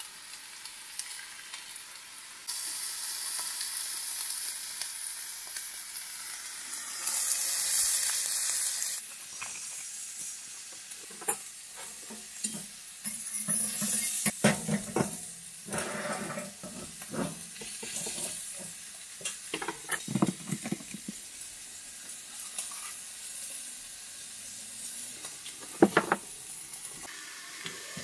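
Pork chops frying in a cast-iron skillet, a steady sizzle that jumps up a few seconds in and is loudest for a couple of seconds soon after. Through the middle come clinks and clatters of a metal pot lid and utensils on the stove, with one sharp clack near the end.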